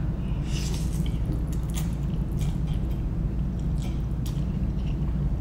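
Slurping and chewing a mouthful of spicy instant noodles: a series of short, wet slurps and smacks over a steady low background hum.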